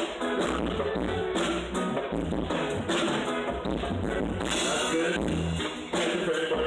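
Band music with drums played loud over a stadium sound system during a sound check.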